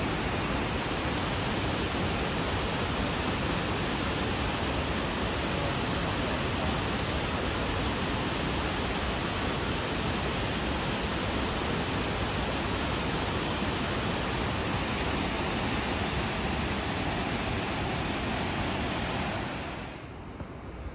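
Mooney Falls' waterfall, a steady rushing hiss of falling water. Near the end it drops to a much quieter level.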